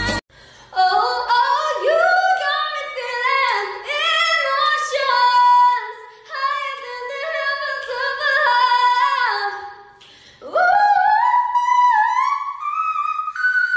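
A woman's unaccompanied, very high singing voice running through gliding, ornamented notes. It breaks off briefly near ten seconds, then slides up into a long held high note.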